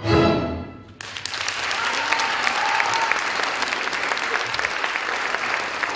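An orchestra's final chord dying away, then audience applause starting abruptly about a second in and going on steadily.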